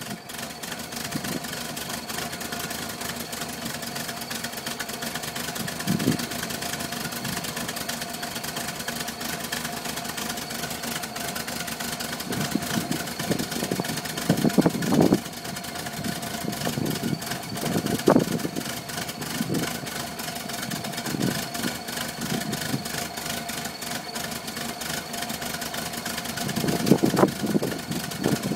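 1978 Volkswagen Westfalia bus's air-cooled flat-four engine idling roughly, with uneven surges and stumbles every few seconds over a steady running hum.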